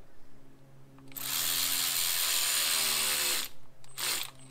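Handheld cordless power driver running for about two seconds while tightening a hose clamp on a cooling-system hose, its pitch dropping as the clamp snugs down. It follows with a short burst and a second one at the very end.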